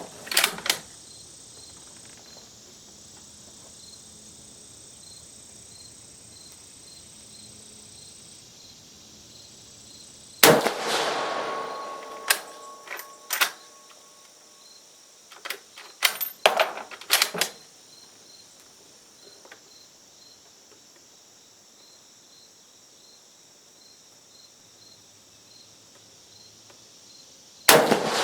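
Two rifle shots from a Carcano M91 TS carbine (6.5×52mm), about 17 seconds apart, each ringing out with a long echoing tail. Between them come sharp metallic clicks of the bolt being worked to eject the case and chamber the next round. Crickets chirp steadily in the background.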